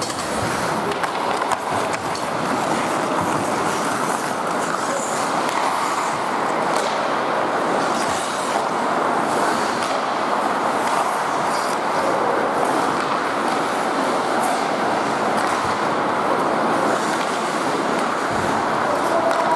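Ice hockey play in an indoor rink: a steady rushing noise of skates on the ice and the arena, with sticks and puck clicking now and then.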